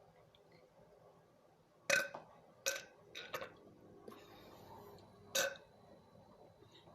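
A woman letting out several short burps, the first and loudest about two seconds in.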